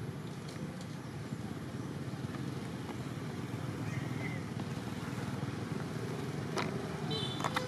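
Steady low background rumble outdoors, with a faint high chirp about four seconds in. Near the end come a few sharp clicks and a brief high squeak.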